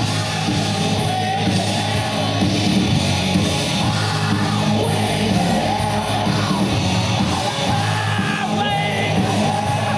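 Rock music with loud, shouted singing, playing steadily.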